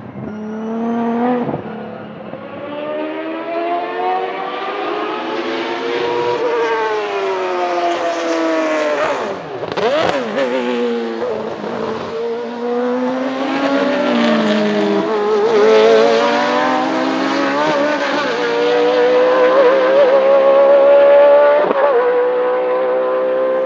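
Racing car engine revving hard, its pitch climbing and dropping again and again as it accelerates and slows, with a sharp drop about ten seconds in.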